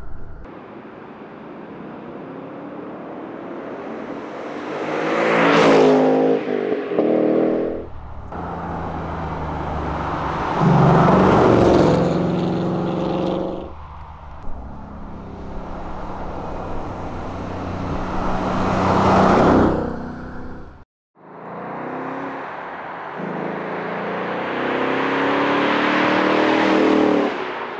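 Ford Mustang Dark Horse's 5.0-litre V8 exhaust, the engine pulling up through the revs in several runs, each climbing in pitch. The sound cuts off abruptly about two-thirds of the way through, then picks up again with another rising run.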